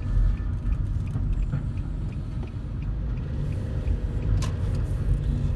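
Car in motion heard from inside the cabin: a steady low rumble of engine and tyre noise, with a faint regular ticking.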